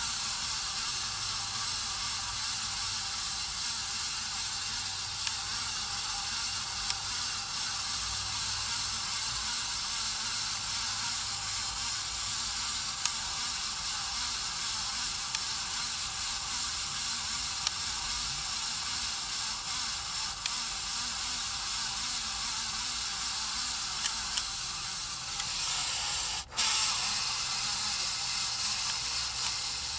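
Casablanca Spirit of Saturn ceiling fan running with bad bearings: a steady, hissing grind with faint ticks every few seconds, the sign of worn motor bearings. Near the end it grows louder, with a brief cutout.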